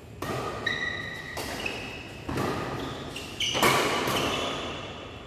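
Badminton rally: four sharp racket strikes on the shuttlecock about a second apart, each ringing on in the echo of a large sports hall.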